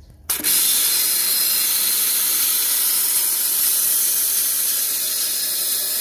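Kärcher pressure washer spraying through a wet-sandblasting nozzle against the inside of an alloy wheel rim: a loud, steady hiss of the water jet that starts suddenly about a third of a second in. The sandblasting attachment does absolutely nothing.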